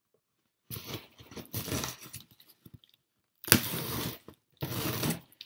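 A knife slitting the packing tape on a cardboard box, with tearing and crunching of tape and cardboard in four rough strokes; the loudest starts sharply about three and a half seconds in.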